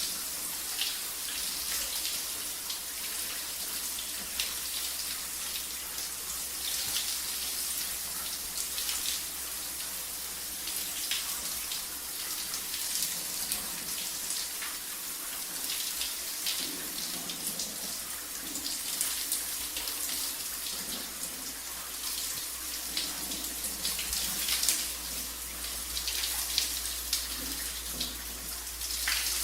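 Shower running: a steady spray of water hissing and splashing, with scattered drips and spatters.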